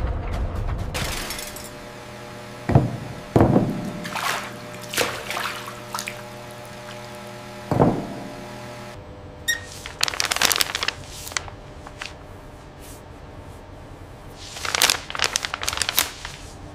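A few heavy thunks over a steady, sustained music drone, then a drinking glass knocking over and water spilling and splashing across a wooden tabletop in several short bursts.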